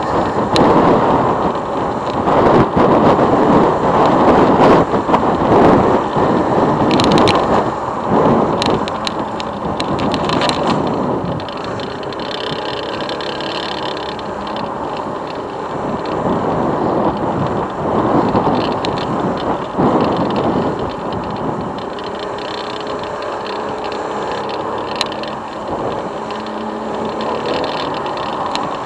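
Motorcycle engine running on the move, heard from an onboard camera, with wind rushing over the microphone. The wind noise is heavy in the first half and eases about halfway through, leaving the engine's steady hum plainer. A few light knocks and rattles come through along the way.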